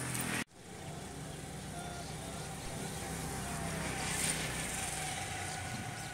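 A motor vehicle's engine running steadily, with a brief dropout about half a second in.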